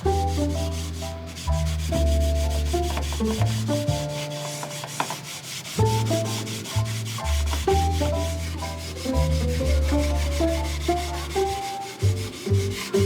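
Sandpaper rubbing back and forth on a wooden camping item to take off its grime and burn marks, heard over background music with a bass line.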